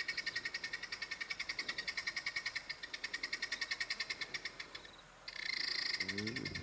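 A small animal's rapid, high-pitched pulsed trill, about a dozen pulses a second, breaking off about five seconds in and then giving way to a steadier high buzz.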